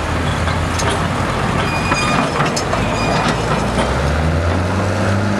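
Detroit Diesel engine of a Link-Belt crane drill running steadily, its pitch rising slightly about four seconds in, with scattered metallic clanks and knocks from the rig.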